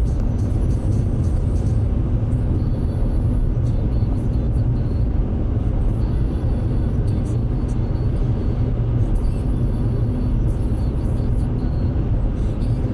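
Steady low rumble of engine, tyre and road noise inside a car cabin at highway speed.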